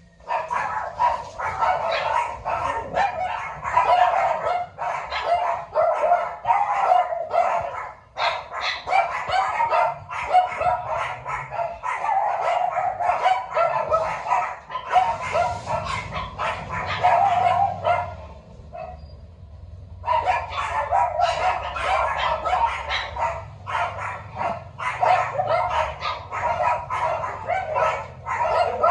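Dogs barking and yipping, rapid and nearly nonstop, with a break of about two seconds a little past the middle.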